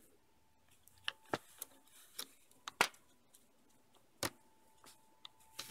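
Scattered light clicks and taps of small hard parts being handled and fitted together by hand: a ball bearing and the arm pieces of a 3D printer extruder's idler. About a dozen irregular clicks, the sharpest a little before the middle.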